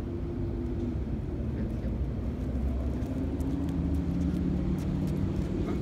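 Motor vehicle traffic: a steady low engine rumble with a droning tone that shifts a little higher about halfway through.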